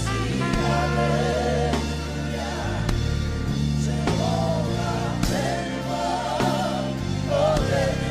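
Gospel worship song: sung vocals with vibrato over held bass notes and occasional drum beats.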